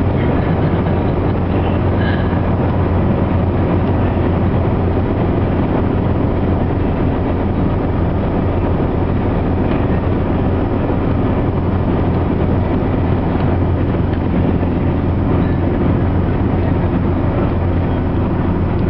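Steady road and engine noise inside a vehicle's cabin while driving at highway speed.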